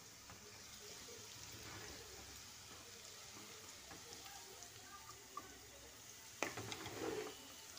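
Faint, steady sizzle of oil in a kadai where thin-cut potatoes are frying, with one sharp knock of a utensil near the end.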